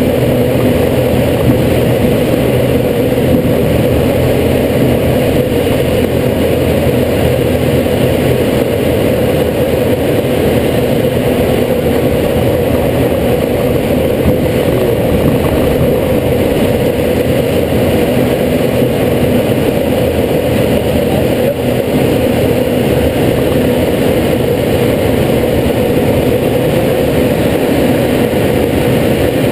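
Steady air rush and engine drone inside a glider's cockpit while it is towed into a climb behind a propeller-driven tow plane. The sound stays even, with no breaks.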